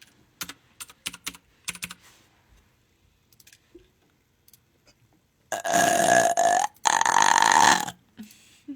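Keyboard and mouse clicks, then two long, loud burps back to back about five and a half seconds in.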